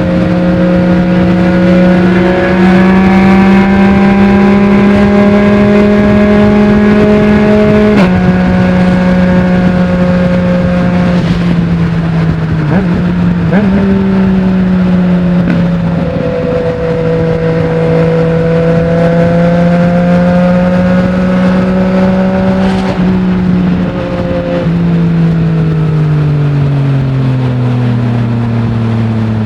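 Yamaha MT-09's three-cylinder engine running through a full Akrapovic exhaust with no dB killer while riding, heard from the rider's position. The engine holds fairly steady revs, with a few brief dips and shifts in pitch, then winds down steadily over the last five seconds or so.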